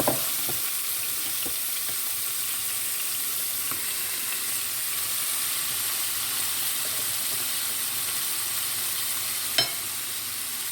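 Chopped tomatoes and green pepper sizzling in hot cooking oil in a frying pan, a steady hiss, with a few light knocks and one sharper knock near the end.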